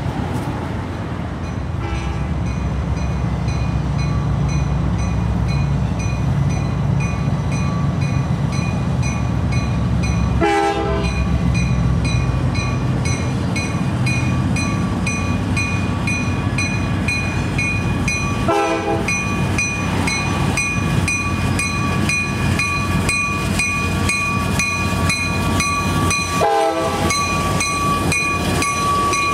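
EMD GP39-2 diesel-electric locomotive's turbocharged 12-cylinder engine running hard in notch 6 as it slowly approaches and passes with a heavy coal train, its rumble growing gradually louder. Over the second half a steady high whine and regular ticking from the passing train join in.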